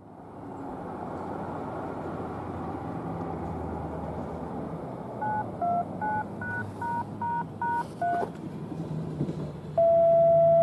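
Steady outdoor background noise, then a string of eight quick touch-tone (DTMF) beeps about 0.4 s apart, and near the end a loud steady single tone begins: the radio tones that set off the fire siren's test.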